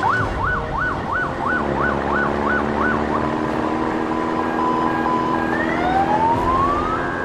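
Police siren sound effect: a fast up-and-down warble, about three cycles a second, for the first three seconds, then a steady hum with a rising whine near the end.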